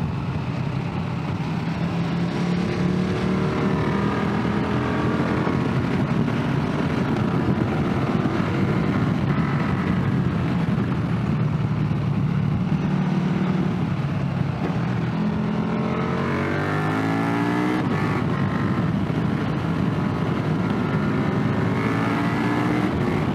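Motorcycle engine running under way with wind rush, heard from the rider's seat; about two-thirds of the way through it revs up with a steeply rising pitch as the bike accelerates, then settles back.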